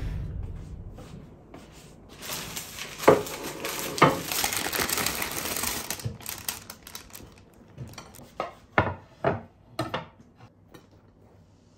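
Rustling with two sharp clicks, then a run of separate knocks and clatters as a plate, a wooden cutting board and a kitchen knife are set down on a wooden table.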